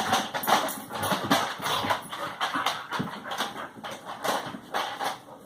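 A dog tussling with a toy RC car: irregular knocks, clatters and scuffs of hard plastic, a few a second, as he grabs and chews at it.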